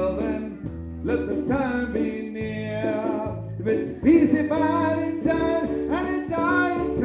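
A recorded song playing, with singing and guitar.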